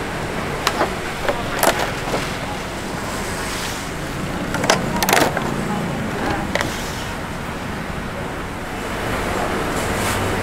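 Clear plastic clamshell food container crackling and clicking as it is pressed shut and handled, a few sharp clicks in the first seven seconds, the loudest about five seconds in, over steady background noise.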